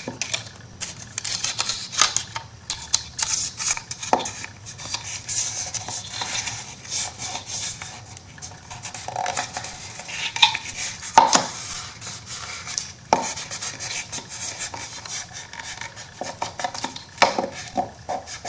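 Craft handling noises on a work table: irregular taps, clicks and scraping while paper adhesive is worked onto an MDF shadow box.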